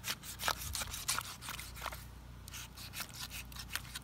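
Knife cutting through a salmon behind the gills to take the head off: an irregular run of sharp clicks and crackles, with a short lull about two seconds in.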